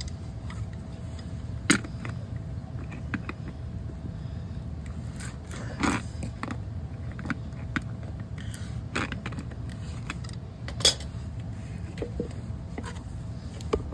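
Scattered clicks and knocks of a can of pipe glue being opened and pipe fittings being handled, three of them sharper and louder than the rest, over a steady low hum.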